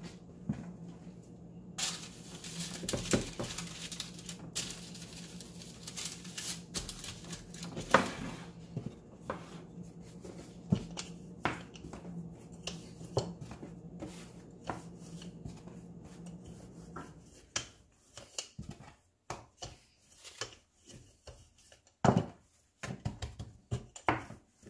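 Wooden rolling pin knocking on the countertop and rolling over soft pita dough, with scattered light knocks and taps as the pin is set down and picked up and the dough is handled. A steady low hum runs underneath and stops about two-thirds of the way through.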